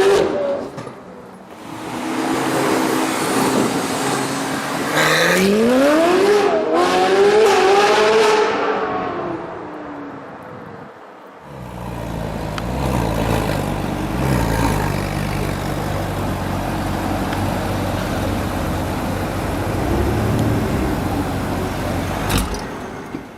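Ferrari 458 Italia's V8 with a Novitec exhaust running loud: a steady drone, then a hard acceleration a few seconds in, its pitch climbing, dipping briefly at a gearchange and climbing again before fading away. About halfway through, the sound switches suddenly to a lower, steady engine rumble that runs to the end.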